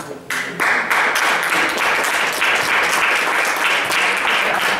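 Audience applauding, the clapping breaking out about a third of a second in and filling out quickly into steady applause.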